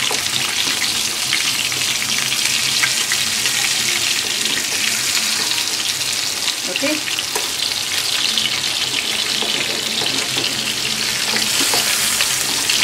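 Rava- and rice-flour-coated stuffed pomfrets shallow-frying in hot oil in a pan: a steady crackling sizzle.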